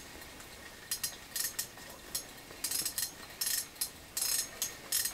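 Irregular light clicks and clinks, about a dozen short sharp ticks, from small metal tackle and a hand tool being handled at close range.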